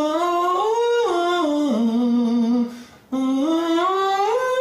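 A man singing slow vowel-modification scales on 'oo', opening toward 'oh' in the middle of the range. Two sung phrases move in steps: the first rises and steps back down, then after a short breath the second rises to a held top note.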